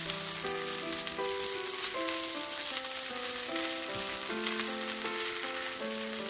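Kimchi fried rice with chicken sizzling in a nonstick wok as a spatula stirs it, a dense crackling hiss over soft piano music.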